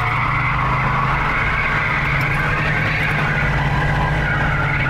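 Boattail Buick Riviera's 455 V8 held at high revs while the rear tyres spin and squeal in a sustained burnout. The engine drone and the wavering tyre squeal run steadily together without a break.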